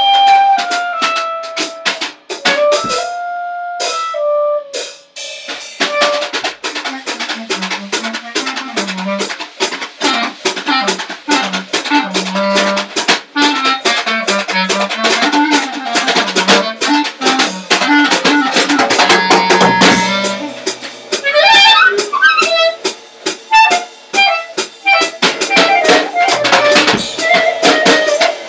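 Clarinet and drum kit improvising together. The clarinet plays held notes that step up and down over busy drumming with frequent cymbal and snare hits. The drums thin out briefly a few seconds in, then come back in densely.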